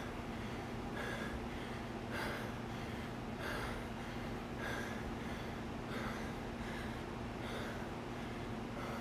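A person breathing hard and rhythmically, about one breath a second, over a steady low hum.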